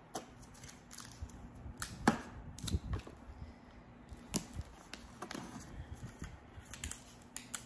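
Bubble wrap, tape and a card being handled while a seed packet is wrapped and taped: faint, scattered clicks and rustles, the sharpest about two seconds in and again around four and a half seconds.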